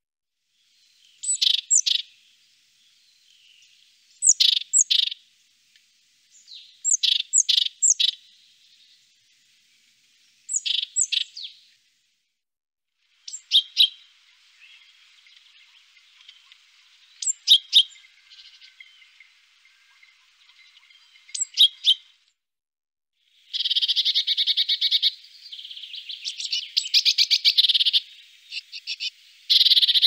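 Great tit singing: short, sharp, downward-sweeping notes in groups of two to four, repeated every few seconds. About three-quarters of the way through, a louder, fast rattling chatter takes over.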